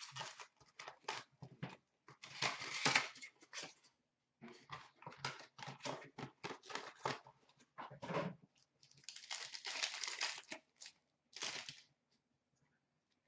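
Foil packs of 16-17 Upper Deck Ice hockey cards being torn open and their wrappers crinkled, with cards slid and shuffled by hand, in irregular bursts of rustling that stop shortly before the end.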